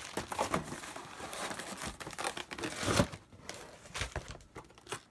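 Plastic wrapping and packing tape crinkling and tearing as a taped cardboard parcel is pulled open. The crackling is dense and irregular, loudest about three seconds in, then thins to a few scattered crackles.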